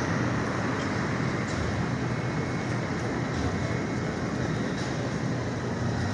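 Steady urban street noise: passing traffic and a continuous low rumble, with no sharp bangs.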